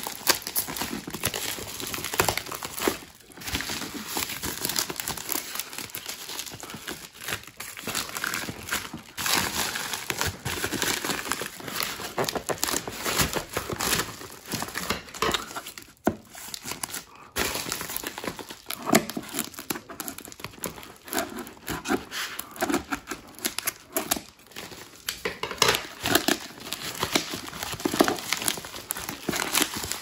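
Plastic Priority Mail shipping envelope being handled and pulled open, crinkling and crumpling with irregular sharp crackles.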